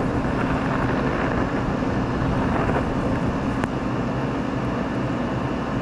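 A steady, loud rushing noise like a running fan or blower, unchanging throughout, with one sharp click about three and a half seconds in.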